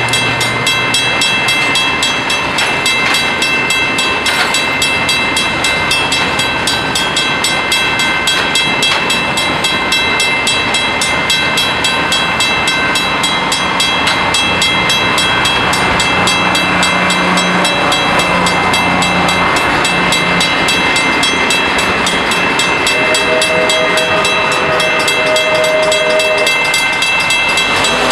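Several steam locomotives working together, with a fast, even beat of exhaust and running gear. A steam whistle chord sounds for a few seconds near the end.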